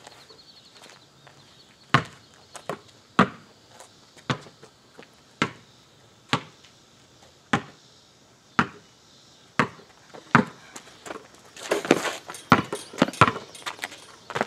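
Basketball dribbled on an asphalt driveway, bouncing about once a second, then a flurry of quicker bounces near the end.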